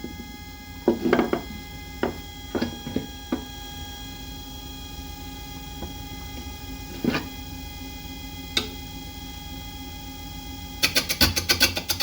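Wood lathe (Laguna Revo 1216) running at low speed with a steady motor whine, while a carbide turning tool knocks now and then against a yellow cedar and walnut bowl blank. Near the end the knocks turn into a fast, even chatter. The knocking comes from the blank not yet being round.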